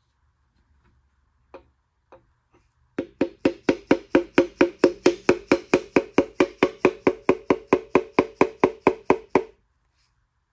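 A piston being tapped down through a ring compressor into the cylinder bore of a Gen 3 LS V8 block with the handle end of a dead blow hammer. After a few light taps, about three seconds in, a steady run of quick even taps begins, about five a second, each with a short ringing note. The taps stop shortly before the end as the rings enter the bore.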